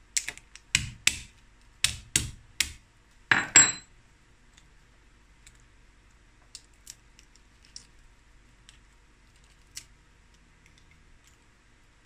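Metal ginger pestle knocking on boiled crab legs against the counter, about six sharp knocks in the first three seconds, then a louder metallic clatter. After that, faint scattered small cracks and snaps of crab shell being broken and peeled by hand.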